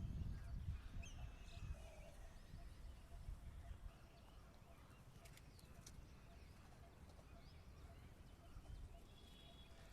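Near silence: faint outdoor background with a low rumble that fades over the first four seconds, and a few faint high chirps.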